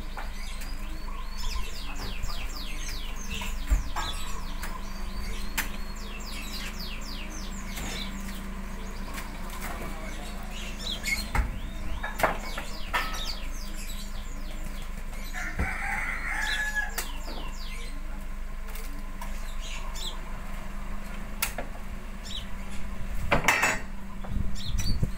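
Oil palm fruit bunches being lifted and tossed from a pickup's bed into a truck, with a few sharp knocks as they land, and birds chirping repeatedly over a steady low hum.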